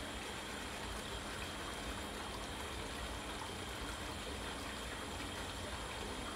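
Steady, even background noise with a faint steady hum and no distinct events.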